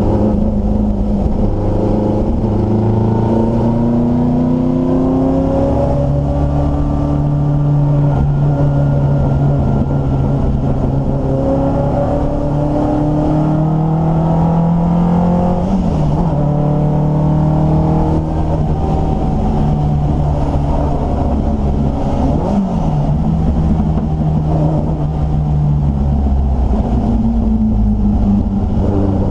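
Triumph Dolomite Sprint race car's 16-valve slant-four engine under hard acceleration, heard from inside the cabin. Its pitch climbs steadily as it pulls and drops sharply at gear changes, twice in the second half.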